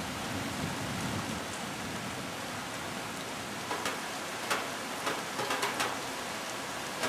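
Steady rain falling during a thunderstorm, with scattered drops ticking sharply close by, more of them in the second half.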